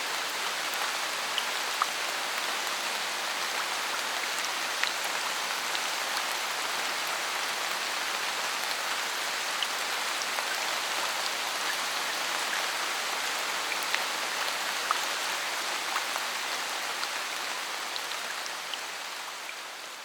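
Steady rain falling in a forest, with scattered louder single drops standing out from the patter. It fades out over the last few seconds.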